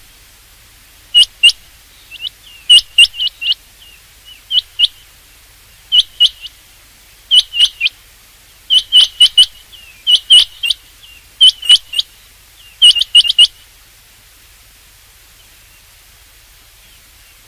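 Rain quail calling: sharp, high notes in quick clusters of two to four, repeated about every second and a half, stopping about 13 seconds in.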